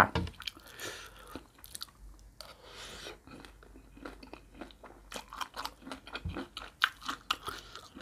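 Close-miked chewing of a mouthful of crunchy shredded-vegetable salad with horseshoe crab eggs: irregular crisp crunches and small wet clicks of the mouth.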